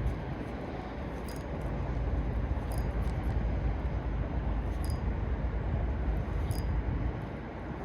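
A steady low rumble of outdoor background noise, with faint sharp clicks every one to two seconds; the rumble eases near the end.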